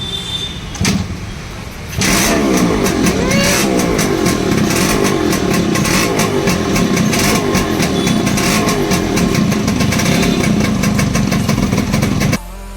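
Two-stroke single-cylinder engine of a restored Yamaha RX motorcycle starting about two seconds in and running loud with rising revs, then stopping shortly before the end.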